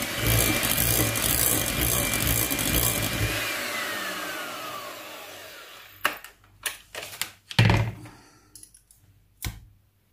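Electric mixer running at high speed with a steady whine, then slowing and winding down over about two seconds as it is switched off once the mixture is whipped. Several sharp knocks follow.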